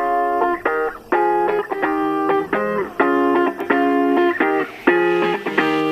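Instrumental background music: a guitar playing short repeated chords, about two a second.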